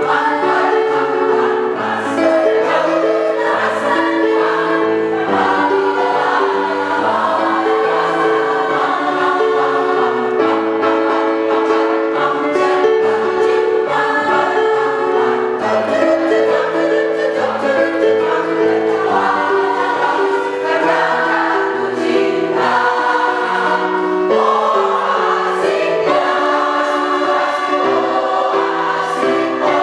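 Women's choir singing, several voice parts holding notes together and moving from chord to chord.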